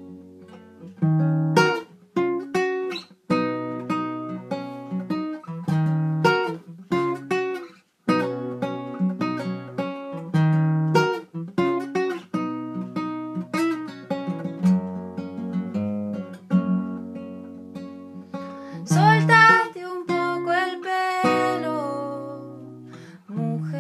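Background music of acoustic guitar, strummed and plucked chords in a steady rhythm, with a short wavering melody over it about nineteen seconds in.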